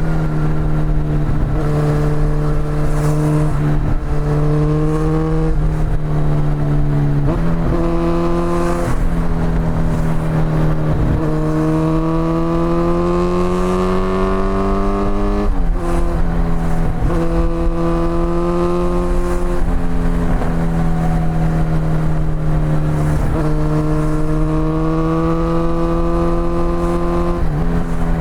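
Kawasaki Z900's inline-four engine through an Akrapovic exhaust, heard from the rider's seat while riding. It pulls steadily, the pitch rising slowly and then dropping back at a gear change several times.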